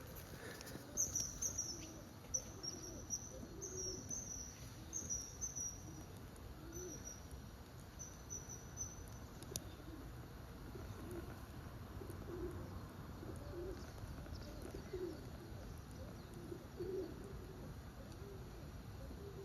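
A pigeon cooing over and over in low, soft phrases. In the first half a small bird gives a series of short, high, thin chirps.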